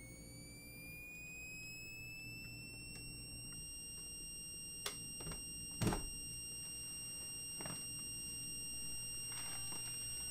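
A high electronic tone that slowly rises in pitch over the first few seconds and then holds steady over a low hum. Several sharp clicks cut in about five to ten seconds in, the loudest about six seconds in.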